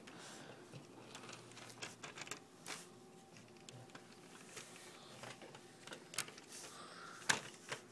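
Faint, scattered clicks and light rattling of Lego pieces as a Lego car is pushed by hand over the Lego road, with a sharper click near the end.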